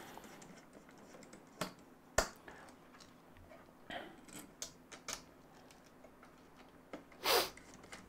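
Sparse small clicks and taps of PC components and a screwdriver being handled as parts are fitted into a small PC case, with a short sniff a little past seven seconds in.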